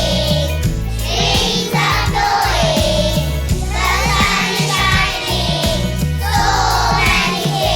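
A choir of young children singing a song in unison over a steady instrumental accompaniment with a regular beat.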